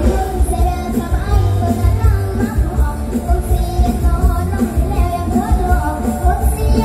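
Mor lam band music played loud over a stage PA, with a singing voice over a heavy bass beat.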